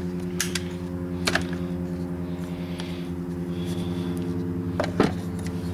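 A few sharp metallic clicks as the spring clips on a VW air cleaner housing are worked loose by hand, the last and loudest near the end, over a steady machine hum.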